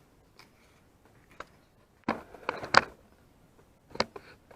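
A cardboard product box being handled: scattered sharp taps and knocks, a quick cluster of them a little past the middle and one more near the end.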